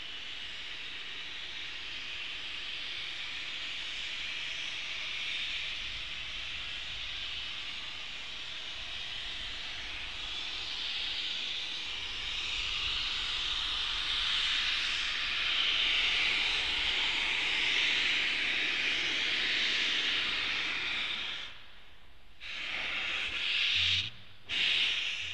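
NSWGR 59 class steam locomotive 5917 hissing steam steadily, slowly growing louder, then breaking off about 21 seconds in; near the end two loud exhaust chuffs as the engine starts to move.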